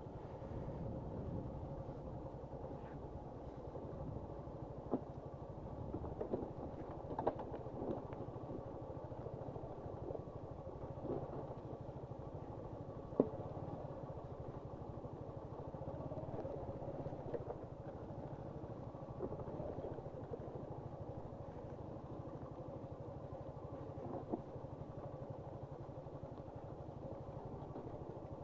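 Suzuki Gixxer SF 155's single-cylinder engine running steadily as the motorcycle rides a rough, rocky off-road track, with a handful of sharp knocks and clatters from the bike jolting over stones; the loudest knock comes about halfway through.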